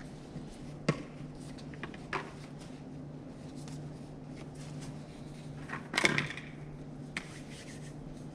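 A steady low machine hum, with a few light clicks and knocks of small objects being handled; the loudest knock comes about six seconds in.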